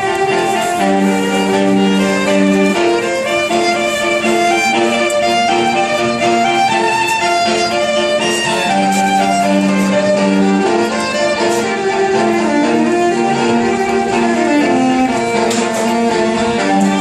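Electric violin playing a melody over held lower notes that change about every two seconds.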